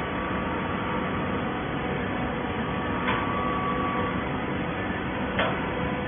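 Horizontal auto-tie baler running: steady hydraulic power-unit noise with a faint whine, and two sharp clacks, about three seconds in and again near the end.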